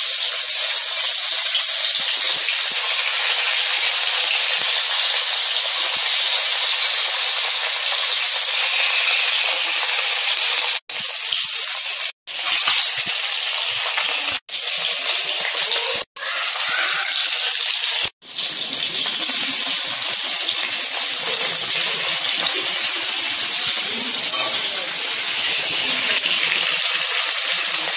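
Rohu fish steaks shallow-frying in hot mustard oil in a kadai: a steady, loud sizzle. The sound cuts out briefly several times partway through.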